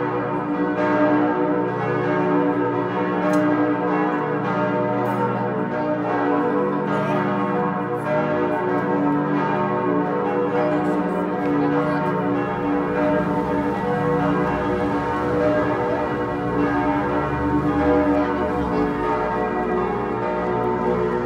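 Church bells ringing together in a continuous peal from the tower, the strokes overlapping into one steady, loud sound.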